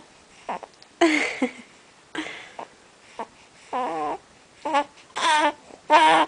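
A baby's grunts and short vocal sounds, several of them with pauses in between; some are breathy, others have a clear pitch.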